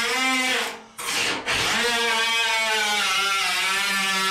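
Electric power tool motor whining as the 280Z's front fender bolts are run out. The pitch wavers a little with the load, and the tool cuts out briefly about a second in before running on.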